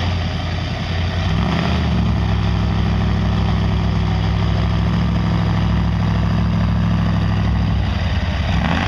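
Engines of a stuck lifted mud truck and a mini excavator running hard while the excavator drags the truck out of a mud pit. The revs climb about a second in, hold steady under load, then drop near the end.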